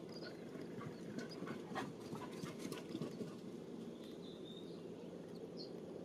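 Songbird nestlings giving faint high begging peeps at the nest while the parent feeds them, with a run of short clicks and rustles in the middle, over a steady low background noise.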